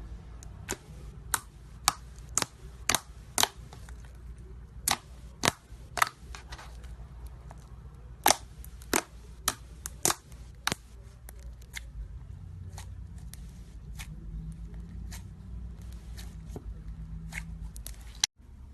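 Slime being worked by hand, giving a series of sharp pops and clicks at an irregular pace of about one or two a second over a low hum.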